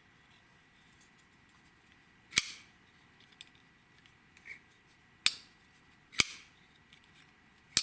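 TwoSun TS48 folding pocket knife worked open and shut on its ceramic ball bearing pivot. Four sharp snaps, spaced one to three seconds apart, as the blade swings and locks.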